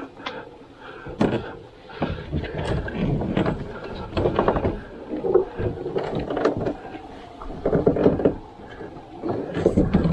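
Irregular knocks, clicks and creaks of a lightweight carbon-kevlar canoe carried overhead on a portage, its hull and gunwales shifting and bumping with each step along a rocky trail.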